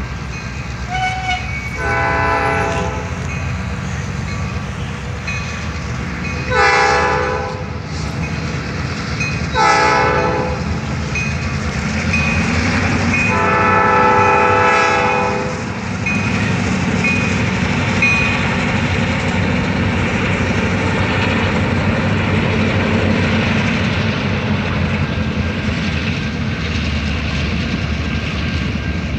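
Diesel freight locomotives, led by a Canadian National unit, sounding the horn for a grade crossing in the standard long, long, short, long pattern. The last blast is held for about two seconds, and then the locomotives and freight cars rumble steadily past.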